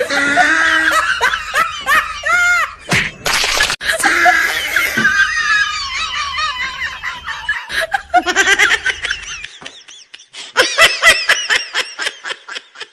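Men laughing and yelling in high-pitched bursts, with a couple of sharp knocks about three and four seconds in; a run of quick, repeated laughs comes near the end.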